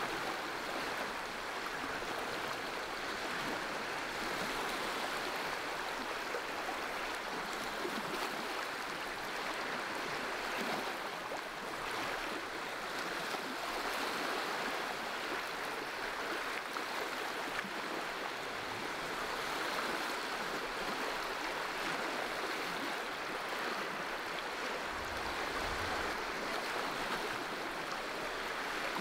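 Steady rushing wash of water, like small waves breaking continuously along a lakeshore.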